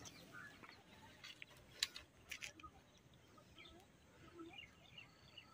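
Near silence outdoors, with faint, scattered bird chirps and a couple of faint clicks about two seconds in.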